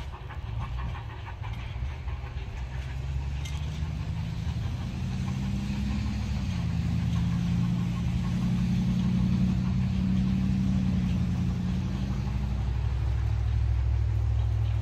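A motor engine running with a steady low hum that grows louder, its pitch stepping down about six and a half seconds in.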